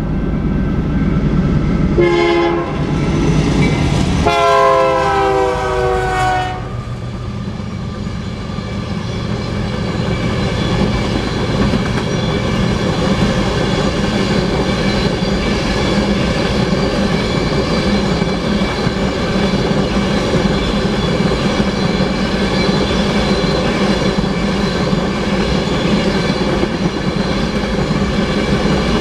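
Horn of a BNSF GE Dash 9-44CW locomotive leading a freight train sounds at the crossing, a short blast about two seconds in and then a longer one ending about six and a half seconds in. After that come the steady rumble and wheel clatter of empty oil tank cars rolling by on the rails.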